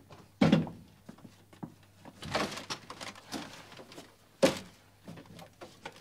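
Wooden knocks and thumps as a door is shut and a small wooden chair is handled: a sharp knock about half a second in, a scuffing thump near the middle, and another sharp knock about four and a half seconds in, with softer bumps between.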